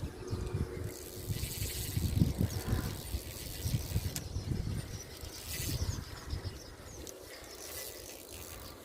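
A spinning fishing reel being cranked as a small fish is reeled in, giving a faint mechanical clicking over uneven low rumbling from handling and wind on the microphone. A single sharp click comes about four seconds in.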